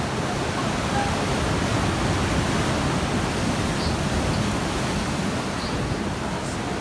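Sea waves splashing and washing on the shore in a steady, continuous rush that swells slightly in the middle.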